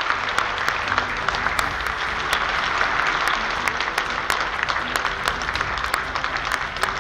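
A large audience applauding, with many hands clapping at once at a steady level.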